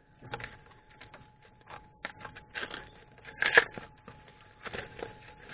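Irregular rustling and clicking from a welder's parts and packaging being handled by hand, loudest about three and a half seconds in.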